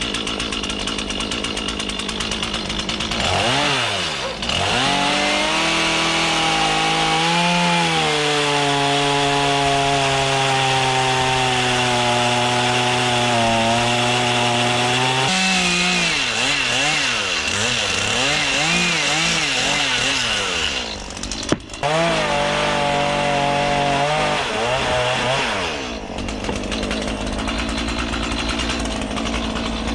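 Two-stroke chainsaw cutting into a wooden log, revving up and down as it carves, easing off briefly a few times between cuts.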